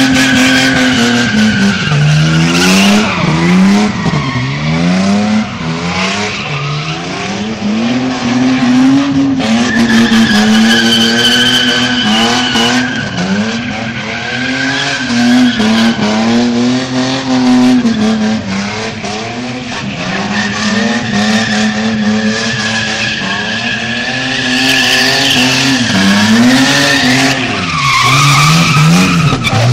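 A car doing burnout donuts, its tyres spinning on the pavement. The engine is held at high revs that rise and fall every couple of seconds, over a continuous tyre squeal with steady high-pitched tones.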